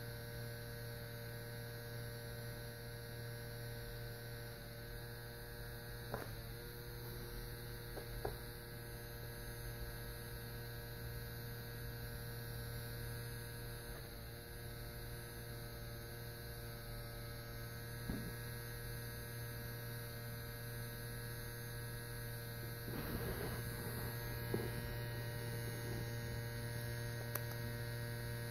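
Steady electrical hum: a low buzz with a stack of steady overtones that never changes. A few faint soft clicks come through it, with a small cluster near the end.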